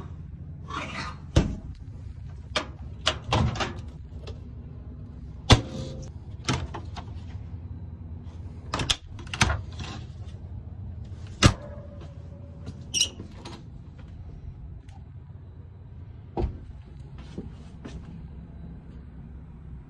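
Motorhome cabinet, appliance and bathroom doors being opened and shut: a string of about ten knocks, clicks and latch snaps, with a steady low hum underneath.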